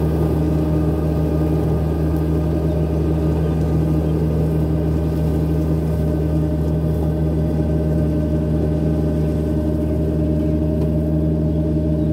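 Kubota B1161 compact tractor's diesel engine running at a constant speed: a steady, unchanging hum with no rise or fall in pitch.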